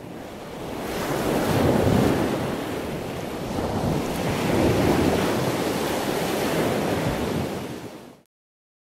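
Small ocean waves washing up on a sandy shore, swelling twice and easing back, then cutting off abruptly near the end.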